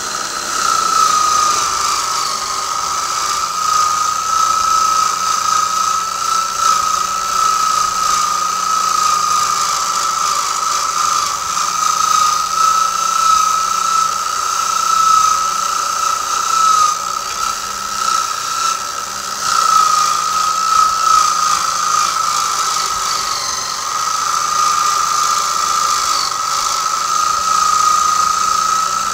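Electric drill motor spinning a fine wire carding wheel, with a Spanish Mauser rifle barrel held against it: a steady high whine over a hiss. The wheel is carding off the loose oxide after the steaming step of rust bluing.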